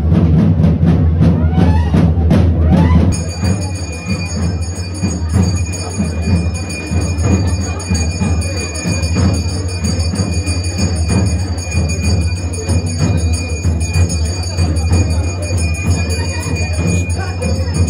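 Drums beating a steady rhythm, changing abruptly about three seconds in to percussion with a sustained, high bell-like ringing over it.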